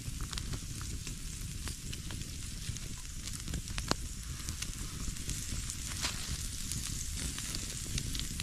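Ribeye steaks sizzling on a wire grill grate over an open wood fire, with the burning logs crackling and giving sharp pops now and then.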